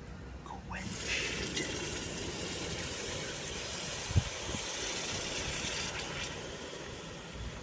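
Red-hot hand-forged knife blade being quenched, hissing as it goes into the quench liquid and fading off toward the end, with a short knock about four seconds in.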